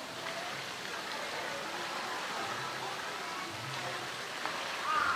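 Steady hiss of falling water at an even level.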